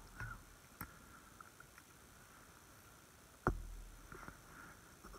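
A single dull knock about three and a half seconds in, with a couple of fainter clicks, against a quiet outdoor background.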